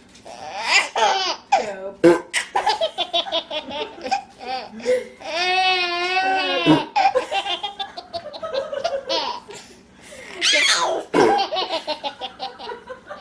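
Baby laughing hard in repeated belly laughs and giggles, with one long, high, wavering squeal about halfway through.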